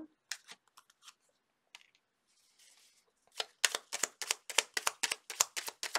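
Tarot cards being handled on a cloth-covered table: a few soft clicks and a brief sliding rustle, then from about halfway a rapid run of card clicks as the deck is worked through the hands.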